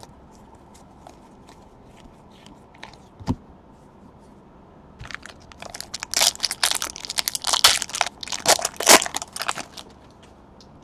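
Foil wrapper of a Panini Contenders Draft Picks football card pack being torn open and crinkled by hand, a dense crackling run of several seconds starting about halfway through. Before it, a single light knock from handling the cards.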